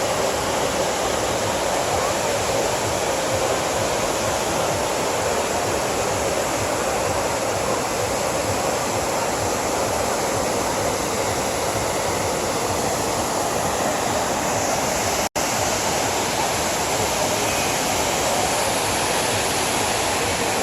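Kravica waterfall's cascades giving a steady, loud rush of falling water, broken once by a split-second gap about fifteen seconds in.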